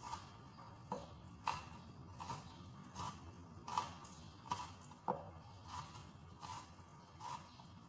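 Knife cutting through an onion onto a cutting board in steady, regular strokes, about eleven crisp cuts a little over a second apart.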